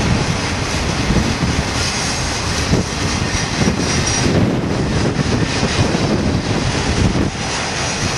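BNSF intermodal freight cars carrying highway trailers rolling past close by: a steady rumble and rush of steel wheels on the rails.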